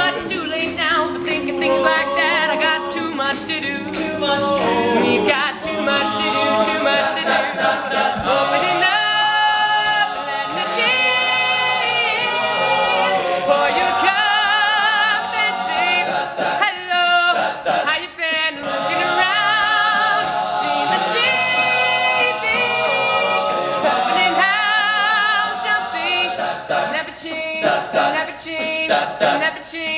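Male a cappella group singing in close harmony, a lead voice with vibrato over sustained backing voices, with sharp percussive hits keeping the beat.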